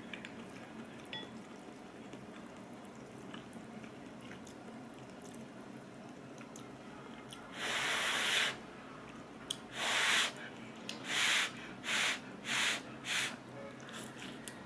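Ramyeon noodles being slurped in a run of breathy pulls: a long one about halfway through, then five shorter ones about half a second apart. Faint mouth clicks come before them.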